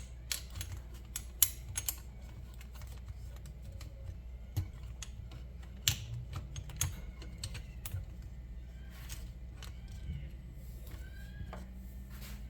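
Scattered light clicks and taps of small metal hinge-pin kit parts being handled and fitted, over a steady low hum, with a few faint squeaky chirps between about 9 and 11 seconds in.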